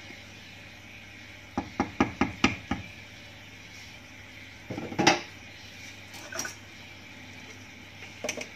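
Kitchen utensils and cookware knocking: a quick run of about six light taps, then a single louder clatter about five seconds in, and a few fainter knocks.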